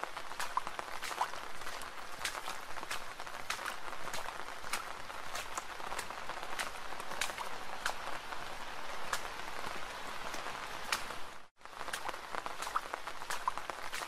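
Steady rain, a soft hiss with many individual drops ticking sharply at uneven intervals. It cuts out for a split second about eleven and a half seconds in.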